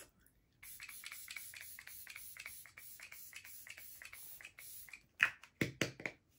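Fine-mist setting-spray bottle pumped rapidly, about four short hissing sprays a second for roughly four seconds, then a few sharp, louder clicks near the end.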